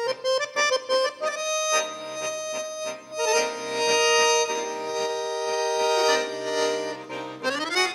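Button accordion played solo: a quick string of short detached notes, then long held chords over a low sustained bass note, and a fast rising run of notes near the end.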